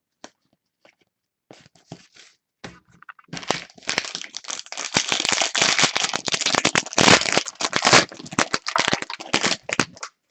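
Prizm basketball card pack wrapper being torn open and crinkled: a few faint clicks, then from about three seconds in a dense, loud crackling of wrapper crumpling that runs for about six seconds.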